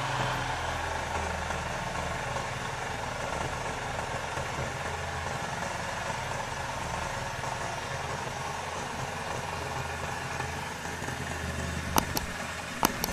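Restored Honda GX160-type single-cylinder four-stroke engine running steadily at idle. Two sharp clicks come near the end.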